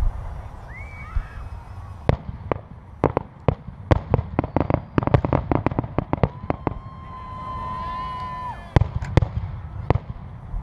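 Fireworks bursting: a long run of sharp bangs, coming fastest in a quick string around the middle. A steady high tone is held for about two seconds after the fastest run.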